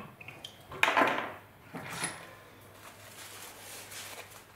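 Hand-tool handling on a workbench: metal clatter about a second in and again near two seconds as the die stock is lifted off the vise and set down, then faint rustling of tissue paper being handled.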